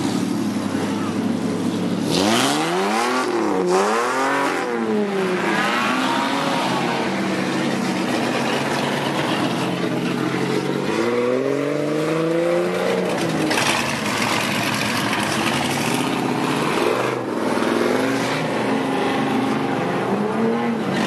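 Race sedans' engines running hard on a dirt track, with revs climbing and dropping several times as cars accelerate and lift through the corner. A steady drone of other engines on the track lies underneath.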